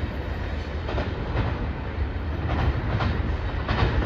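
Freight cars of a mixed freight train rolling away on the rails: a steady low rumble with occasional clacks of wheels over rail joints.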